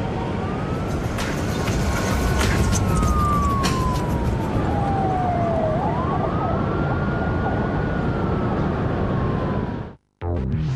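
Police siren wailing over a dense low rumble: its pitch falls slowly, then sweeps quickly back up and holds. About ten seconds in it cuts off suddenly, and after a brief silence a low throbbing sound begins.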